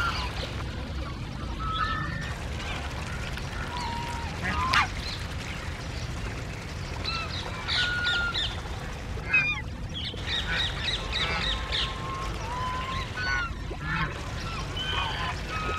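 A flock of domestic waterfowl calling in short, scattered honks and quacks, several overlapping at times, over a steady low rumble.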